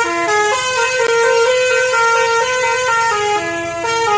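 Coach bus's multi-tone musical air horn (an Indonesian "telolet" horn) playing a quick tune of short notes, one after another without a break.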